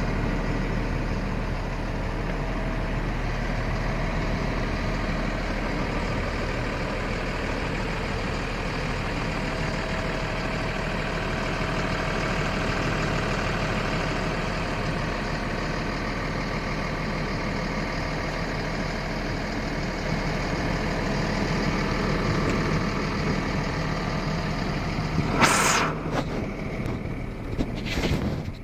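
Diesel engine of a 1998 M1078 LMTV cargo truck, a Caterpillar 3116 six-cylinder, idling steadily. Two short, loud bursts of noise come near the end, about three seconds apart.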